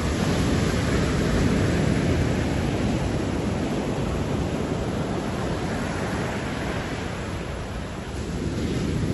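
Ocean surf breaking on a sandy beach: a steady, deep wash of waves that swells and eases slowly, dipping briefly near the end before building again.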